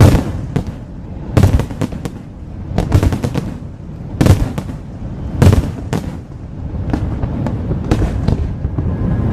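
Fireworks display: aerial shells bursting with sharp, loud bangs about every second, some in quick pairs, over a rolling low rumble and echo.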